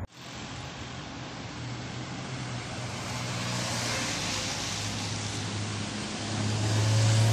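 Road traffic passing close by: a steady rush of tyre and engine noise from cars and motorcycles that swells a few seconds in, with a low engine hum growing louder near the end.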